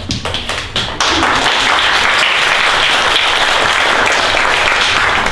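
Audience applauding. A few scattered claps build within about a second into full, steady applause, which fades away near the end.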